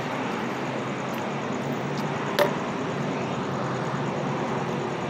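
Steady street traffic noise with vehicle engines running, and one sharp click about two and a half seconds in, preceded by two fainter ticks.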